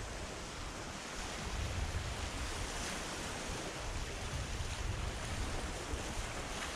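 Small waves breaking and washing in shallow surf over a sandy shore, a steady rushing hiss, with wind rumbling on the microphone.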